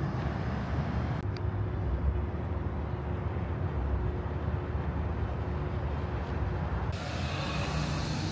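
Vehicle noise in a parking lot: a steady low rumble, with a faint steady hum from about a second in until past six seconds.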